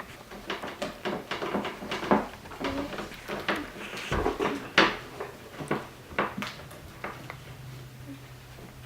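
Slime being stirred in a bowl with a spatula: irregular knocks, clicks and scrapes of the spatula in the bowl, about two or three a second, with one louder knock about five seconds in.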